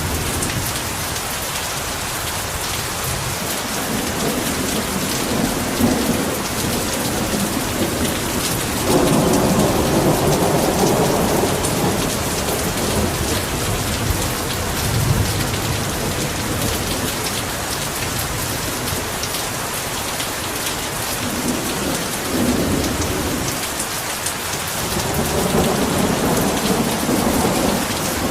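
Heavy rain falling steadily, with rolls of thunder rumbling underneath: one swells about nine seconds in, others near the middle and toward the end.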